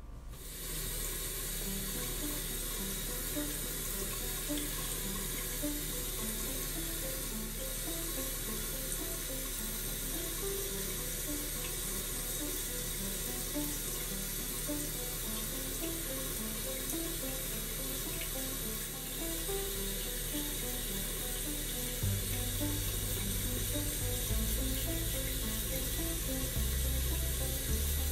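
Bathroom sink faucet running steadily, a constant hiss of water, under quiet background music whose melody goes on throughout and which gains a low bass line about two-thirds of the way in.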